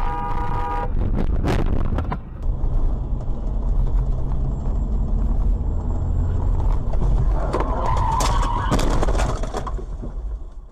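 Car audio on the road. A horn sounds a chord of steady tones and stops about a second in, followed by two sharp knocks. Then a continuous engine and road rumble, with a harsh noisy burst about seven and a half seconds in that lasts over a second.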